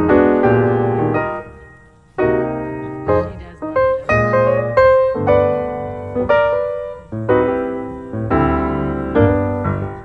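Background piano music: notes and chords struck and left to ring away, with a short lull about two seconds in.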